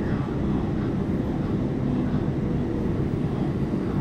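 Waratah Series 2 electric train running, a steady low rumble heard from inside the carriage.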